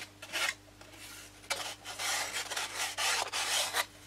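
Scrunched-up sandpaper rubbed back and forth along the leading edge of a 3 mm laser-cut balsa tailplane, rounding the edge off: a couple of short strokes, then about two seconds of quick, continuous rubbing.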